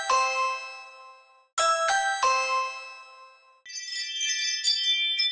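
Ring doorbell chime: a quick run of bright chime notes rings out and fades, and sounds again about a second and a half in. From nearly four seconds in comes a tinkling wind-chime notification tone, many light high strikes over ringing tones.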